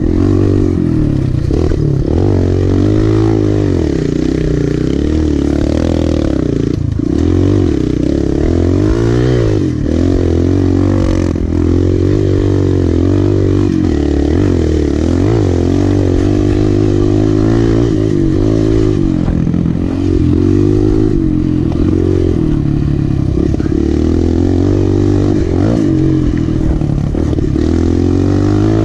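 Kawasaki KLX dirt bike's small four-stroke single-cylinder engine, heard from on board, revving up and falling back over and over as it is ridden. The pitch rises and drops every second or two.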